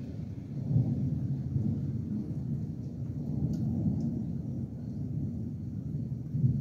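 Thunder rumbling low and continuously, swelling louder about a second in and again near the end.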